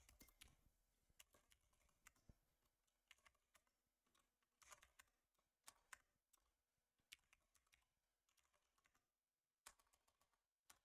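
Faint, irregular keystrokes on a computer keyboard as a command is typed, with short pauses between bursts of clicks and a longer pause near the end.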